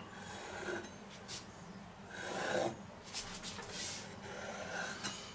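Chef's knife cutting through slices of cheese and ham on a wooden cutting board: several short scrapes of the blade against the wood, the loudest about two seconds in.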